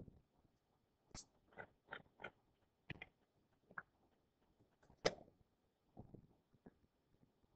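Near silence broken by about eight faint, short clicks and small noises, scattered unevenly.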